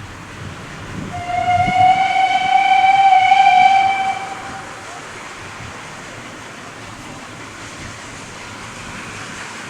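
Steam locomotive whistle sounding one long, steady note for about three seconds, starting about a second in.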